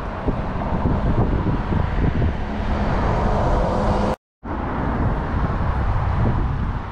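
Steady outdoor rushing and rumbling on the microphone, heaviest in the low end, broken by a brief cut to dead silence about four seconds in.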